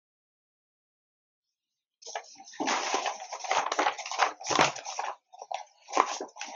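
Sheets of drawing paper rustling and crinkling as they are handled and swapped, in irregular bursts starting about two seconds in.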